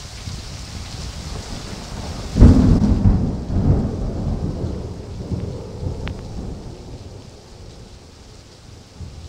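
A thunderclap from a cloud-to-ground lightning strike breaks in suddenly about two seconds in, then rumbles on for several seconds and fades. Steady rain runs underneath.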